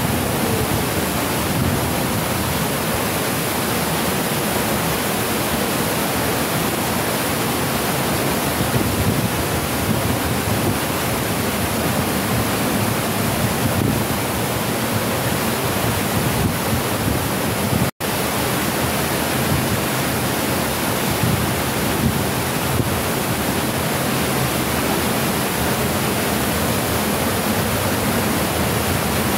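Artificial waterfall cascading down a stone-clad wall, a steady, loud rushing of falling water that breaks off for an instant about two-thirds of the way through.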